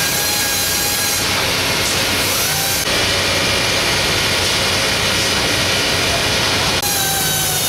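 Woodshop machinery running steadily with a high whine. About three seconds in, a loud hiss rises over it, and it stops suddenly about four seconds later.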